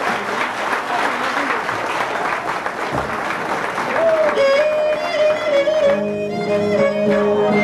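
Applause and crowd din, then about four seconds in a traditional folk tune starts on a single melody instrument, joined about two seconds later by a low steady drone.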